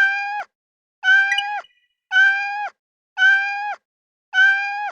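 A cat meowing, the same short meow repeated five times about once a second, each call holding its pitch and dropping at the end.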